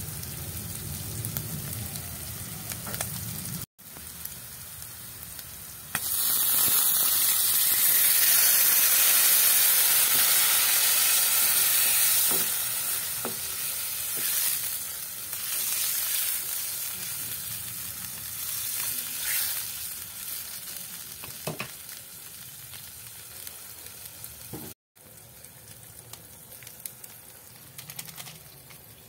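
Chopped pork and vegetables frying in a pan, stirred with a wooden spatula. About six seconds in, the sizzle jumps suddenly much louder as liquid goes into the hot pan, then eases to a softer bubbling hiss. There are a few light knocks of the spatula against the pan.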